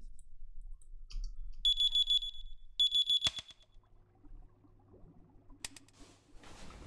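Electronic alarm clock beeping rapidly in two short bursts, the second cut off by a sharp click as it is switched off. A faint steady low hum of a fish-tank recording follows, with a short rustle near the end.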